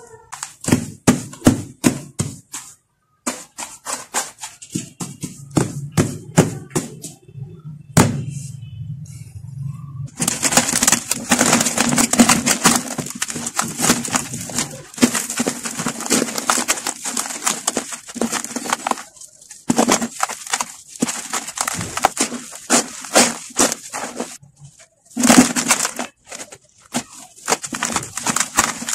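Hands crushing and crumbling dry sand-cement: crisp gritty crunches in short runs at first, then from about ten seconds in a dense crackle of breaking lumps and falling grit, with brief pauses.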